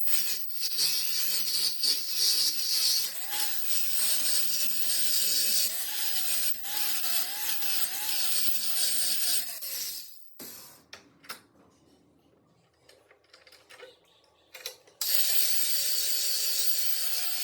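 Power tool grinding or sanding the steel of a rusted knife, a dense hiss with the motor's pitch dipping and wavering under load. It stops about ten seconds in, leaving a few faint clicks, then starts up again abruptly near the end.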